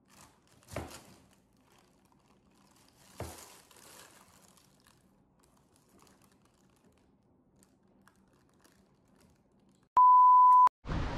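A steady, high-pitched electronic beep lasting under a second near the end, added as an edit sound effect over the channel's logo card; it is by far the loudest sound. Before it, a quiet room with two brief sharp sounds, about a second in and about three seconds in.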